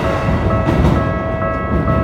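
Keikyu Daishi Line electric train passing over the level crossing: a dense rumble of wheels on rail under several steady high tones that change pitch in steps.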